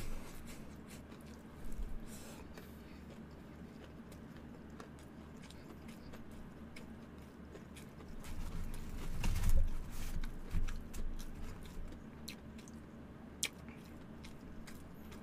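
Close-miked chewing of crispy fried chicken, with small wet mouth clicks and crunches. About eight seconds in there is a louder stretch of crunching and knocks lasting a few seconds, as a piece is taken from the paper chicken box.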